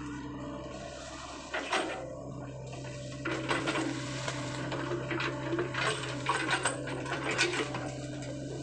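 Crawler excavator's diesel engine running steadily, with a string of sharp clanks and cracks starting about a second and a half in as the machine moves through palm fronds and undergrowth.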